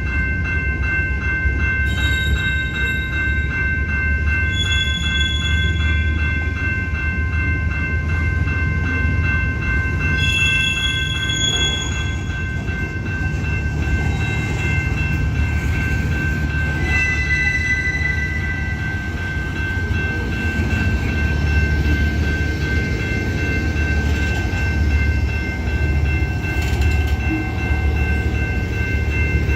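Union Pacific freight train running by with a steady low rumble, and thin steady high-pitched tones ringing over it throughout. A few brief higher squeals come and go.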